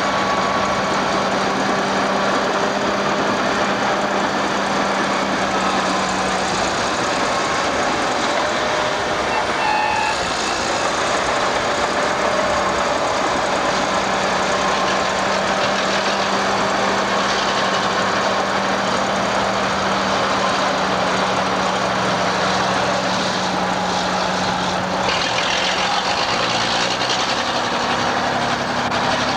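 Heavy diesel engines of a hydraulic excavator and an AEC Mercury tipper lorry running steadily while the excavator loads the lorry. The low engine hum changes pitch near the end as the loaded lorry moves off.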